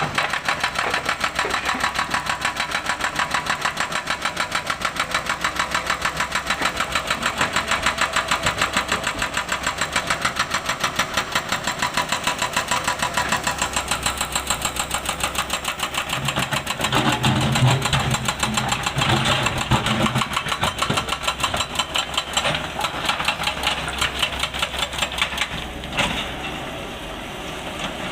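Excavator's diesel engine running with a rapid, even chugging pulse. About two-thirds of the way through, a deeper, louder sound comes in for a few seconds, then the engine sound drops back and eases off near the end.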